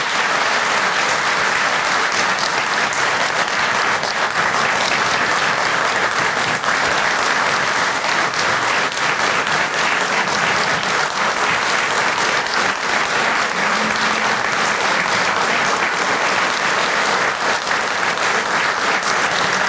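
An audience applauding: a steady, continuous round of clapping that holds at an even level throughout.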